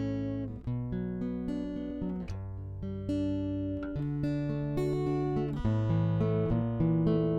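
Background music led by acoustic guitar, with plucked notes and chords changing every second or so.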